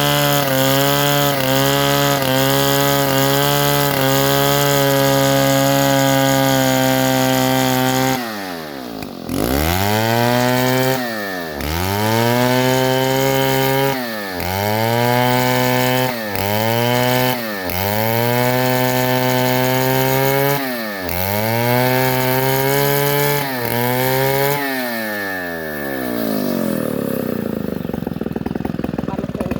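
Two-stroke chainsaw engine running at high speed with a small regular dip in pitch, then throttled down and up again and again, the pitch falling and rising each time, before settling to a low idle near the end.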